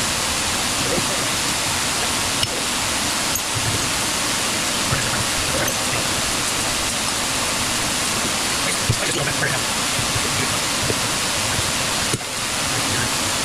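A fan blowing: a steady rush of air noise, with a few faint taps from work at the bench.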